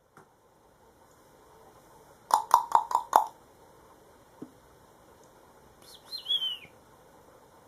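A cockatiel tapping its beak hard five times in quick succession, about five taps a second, each a sharp ringing knock. A few seconds later it gives one short warbling chirp that slides down in pitch at the end.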